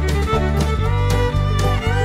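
Background music led by a fiddle over a bass line and a steady beat.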